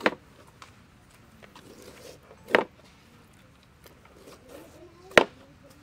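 Meat cleaver chopping scoring cuts into a raw mutton leg on a metal tray: three sharp chops, about two and a half seconds apart.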